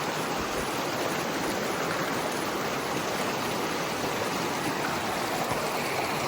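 Steady rush of a mountain river or stream flowing over rocks.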